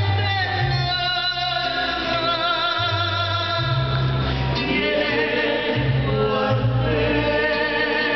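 Mariachi band playing and singing: voices with vibrato carry a sustained melody over a bass line that steps between low held notes.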